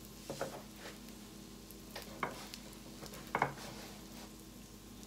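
Utensil scraping and clinking on an electric griddle, a few short strokes with the loudest about three and a half seconds in, over faint sizzling of food frying.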